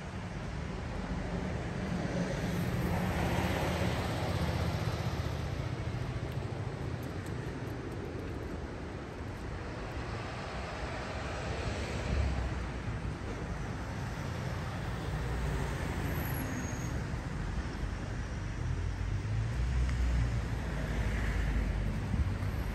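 Road traffic: cars passing one after another, each a swell of tyre and engine noise that rises and fades, about three times, over a steady low rumble.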